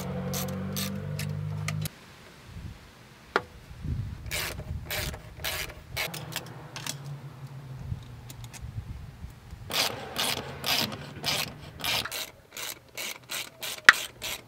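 Hand ratchet clicking in repeated short strokes, roughly two a second and quicker near the end, as bolts on a turbo mounting are worked. A steady low hum is heard for about the first two seconds and cuts off abruptly.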